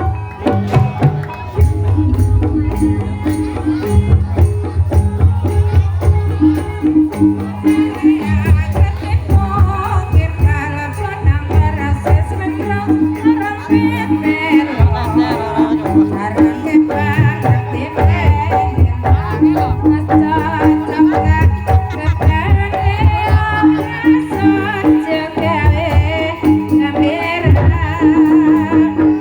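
Javanese gamelan music accompanying an ebeg hobby-horse dance: drums beat a steady pattern under ringing metal keyed instruments, and a singer's wavering voice joins in from about a third of the way through.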